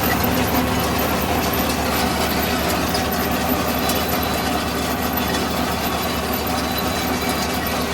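Tractor engine running steadily, with a constant rattle of machinery over the engine's hum.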